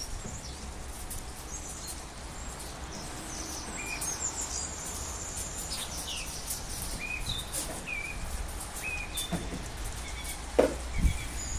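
Small birds chirping and calling with short, high notes, some repeated several times, over a steady low rumble of outdoor background noise. A couple of dull thumps near the end.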